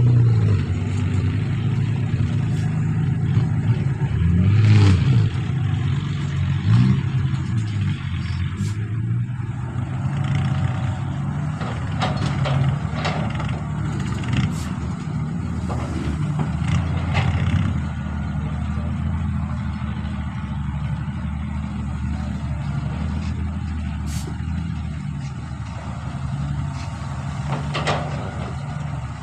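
Excavator's diesel engine running under load, its pitch rising and falling as it works, with scattered metallic clanks.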